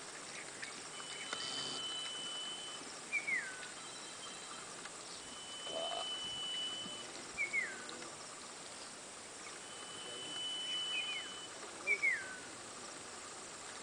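Repeated high whistled animal calls: a long, steady high note held for about a second and a half, then a short falling note. The pair comes about every four seconds, three times, and a fourth steady note begins near the end.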